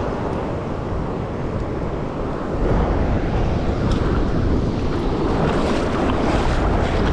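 Mountain stream water rushing steadily over rocks, growing louder about three seconds in.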